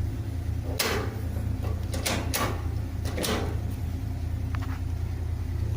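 A few short knocks and clatters of hands handling the machine's parts, over a steady low hum.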